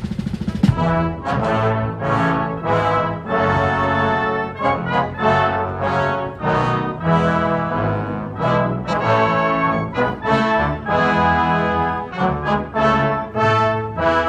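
Brass band playing a national anthem in slow, full chords, coming in with a loud attack about a second in.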